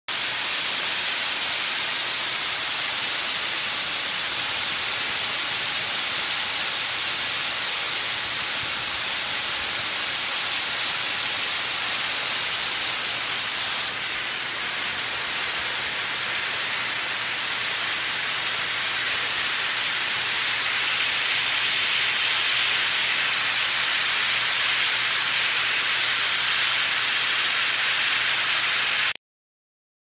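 Fire hose spraying water: a loud, steady hiss, heaviest in the high range, that eases a little about halfway through and stops abruptly near the end.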